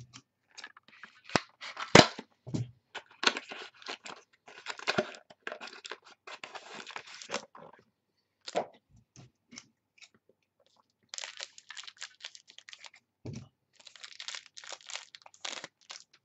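Trading card pack wrapper being torn open and crinkled, with cards and plastic sleeves being shuffled and handled in irregular bursts of crackle and sharp clicks. The loudest is a sharp click about two seconds in, and there is a dull knock a little after the middle.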